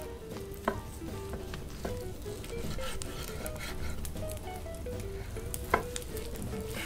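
A chef's knife slicing through a seared ribeye's crust on a wooden cutting board, crackling as it cuts, with two sharp knocks of the blade on the board, one about a second in and one near the end. A soft background melody plays underneath.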